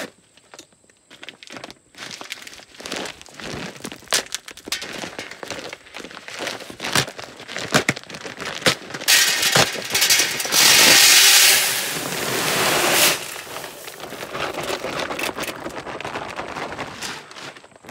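A stiff paper feed bag crackling and crinkling as its stitched top is torn open. Then shelled corn is poured from it into a plastic barrel feeder: a loud rush of kernels for about four seconds, easing into a lighter trickle.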